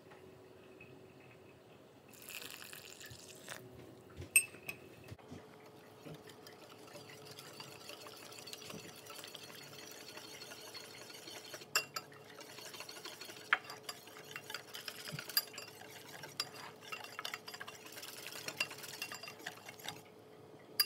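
Water poured into a ceramic bowl of gram-flour mix for about a second, then a wire whisk stirring the thick batter, scraping and clinking against the bowl with sharp ticks now and then.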